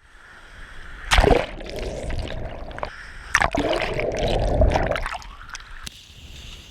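Seawater splashing and washing against jetty rocks: two waves surge in about two seconds apart, each hitting with a splash and then sloshing away.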